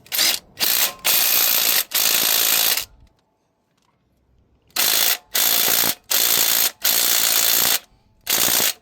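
Ratchet clicking in repeated bursts, stroke after stroke, as a harmonic balancer installer is tightened to draw the balancer onto the crankshaft. There is a pause of about a second and a half midway, then the strokes resume.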